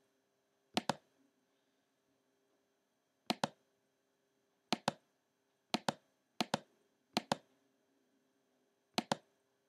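Computer mouse button clicking seven times at uneven intervals, each click a quick press-and-release pair, as points of a polygonal lasso selection are placed one by one.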